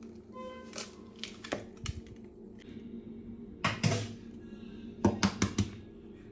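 Irregular light clicks and knocks of a kitchen utensil against a mixing bowl as cake batter ingredients go in, with a heavier knock near four seconds and a quick run of about five taps a second later.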